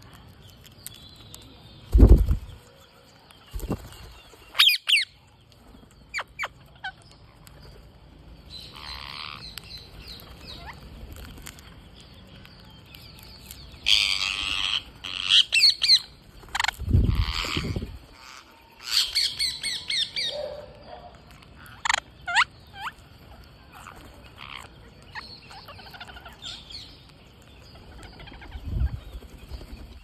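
A flock of rose-ringed parakeets feeding, giving short, shrill squawks in scattered bursts, busiest in the middle. Three low thumps of wingbeats from birds landing close by stand out: one about two seconds in, one midway and one near the end.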